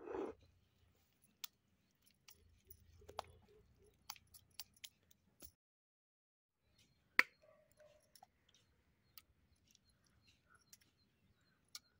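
Hands scooping and scraping wet ground greens-and-spice paste off a flat granite grinding stone: faint wet squishing with scattered light clicks and taps, one sharper click a little past the middle.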